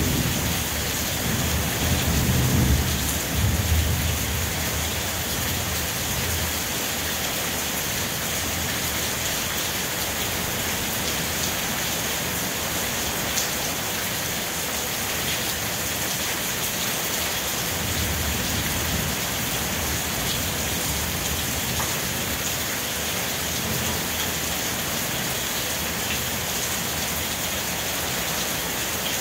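Steady rain falling, with low rumbles of thunder in the first few seconds and again about two-thirds of the way through.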